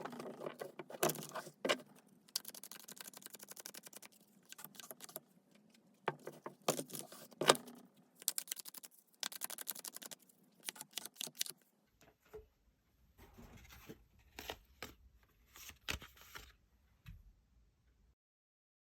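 Tarot cards being shuffled and handled: dense runs of quick flicking clicks and rustles, thinning out to scattered clicks over a low hum in the last few seconds.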